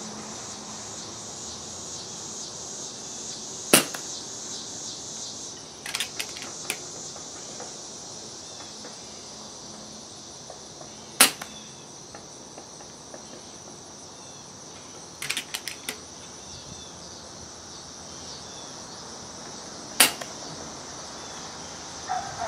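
Three single shots from an FX Streamline .22 PCP air rifle fitted with a DonnyFL Sumo moderator on its lowest power setting, each a brief sharp report, spaced about eight seconds apart. Between shots come short runs of quick mechanical clicks.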